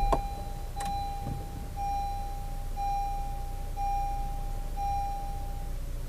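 Honda Civic seat-belt reminder chime beeping steadily, about one beep a second, each a clear held tone, with a low steady rumble underneath and a couple of clicks near the start.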